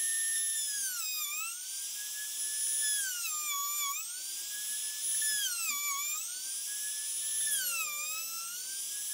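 High-speed electric rotary tool whining, its bit boring into a wooden ring. The pitch sags four times, roughly every two seconds, as the bit bites into the wood under load, and climbs back as it frees.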